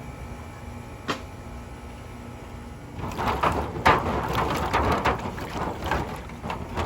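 Freshly dug potatoes being washed by hand in a container of water. A single click comes about a second in, and from about three seconds in there is a busy, irregular run of splashing, rubbing and knocking as they are scrubbed.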